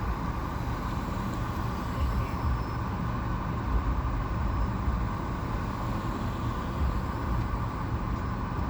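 Steady low rumble inside a car's cabin, with the engine idling.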